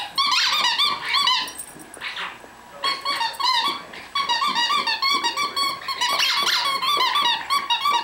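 Squeaky dog toy squeaked over and over in quick runs, several squeaks a second, as terriers play with it; the squeaking eases off about two seconds in and then picks up again and keeps going.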